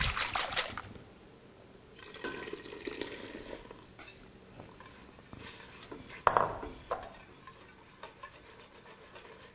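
Wire whisk stirring an egg-lemon mixture into a stainless steel pot of soup, with soft scraping and swishing. There are a few sharp clinks of the whisk against the cookware, the loudest about six seconds in and a smaller one just after.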